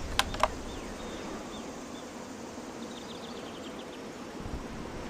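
Two sharp clicks about a quarter second apart, then steady outdoor background with faint, short high chirps.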